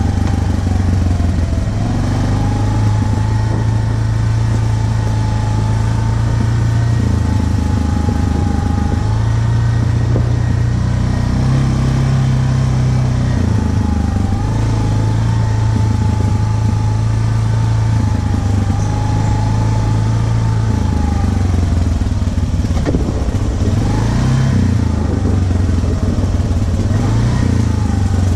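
Yamaha ATV engine running under way, its note stepping up and down with the throttle, with a higher whine above it that slowly rises and dips with speed.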